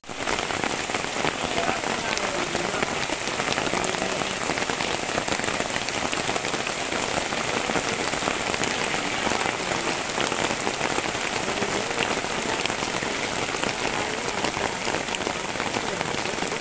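Steady heavy rain falling, a dense hiss full of many sharp drop ticks, starting abruptly.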